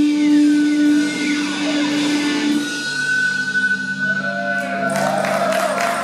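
A live rock band lets its closing chord ring out, with long held electric guitar notes and sliding pitches. Near the end the crowd starts to cheer and clap.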